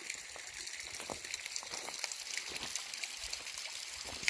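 Spring water dripping and trickling down rock: a steady high hiss with many scattered, irregular drips and small splashes.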